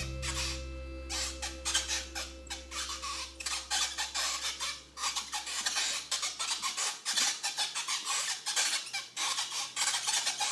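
Many small clicks and rubbing sounds of Play-Doh and plastic toy pieces being handled, under a low held music chord that fades out about two-thirds of the way through.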